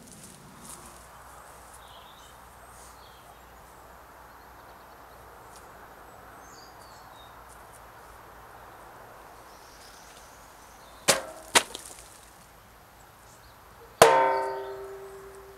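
A fabricated sheet-steel axe striking a wooden chopping stump: two sharp knocks in quick succession, then near the end one heavy blow whose hollow steel head rings on with a metallic tone, fading over about a second and a half.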